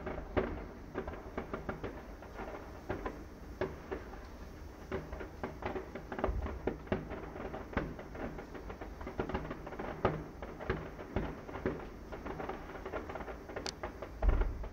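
Distant fireworks popping and crackling in an irregular series, with a deeper thud about six seconds in and again near the end.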